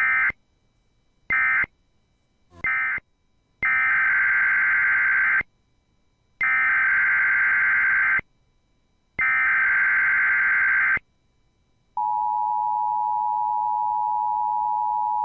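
Emergency Alert System signalling: three short bursts of end-of-message data tones about a second apart, then three longer bursts of SAME header data opening the next alert. Then, about twelve seconds in, the steady two-tone attention signal starts and holds.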